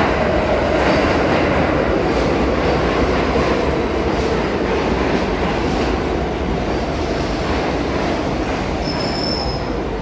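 R62 subway train running into the station along the platform, a steady loud rumble of wheels on rails with a faint motor whine, easing slowly as it goes. A brief high squeal comes about nine seconds in.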